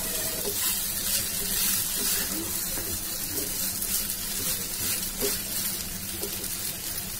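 Boiled rice and vegetables frying in oil in a nonstick pan, a steady hiss broken by repeated scrapes as a plastic slotted spatula stirs and tosses the rice. A steady low hum runs underneath.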